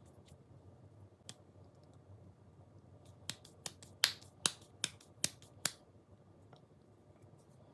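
A single sharp click, then a quick run of about seven sharp clicks or taps, roughly two a second, over a steady low hum.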